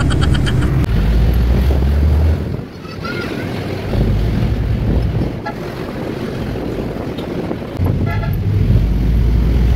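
Riding in an open-sided jeepney: engine and road noise with heavy wind buffeting on the microphone that comes and goes in long gusts, and a short vehicle horn toot about eight seconds in.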